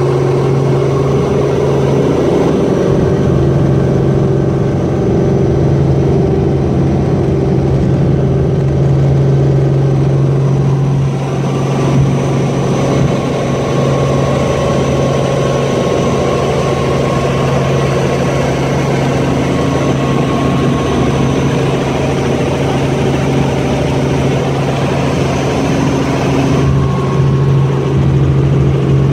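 Helicopter engine and rotor running steadily through take-off, heard from inside the cabin, with a strong steady low hum.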